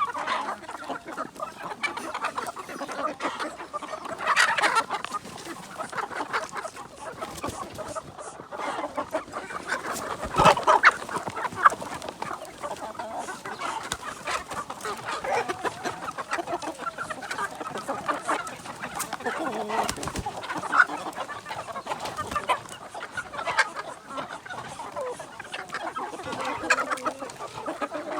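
A flock of kampung chickens clucking continuously, with a couple of sharp knocks near the middle.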